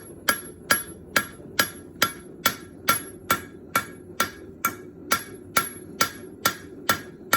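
Hand hammer striking a hot bronze leaf on an anvil in a steady rhythm, about two blows a second, each with a bright metallic ring, as the leaf is flattened and shaped. A steady low hum runs underneath.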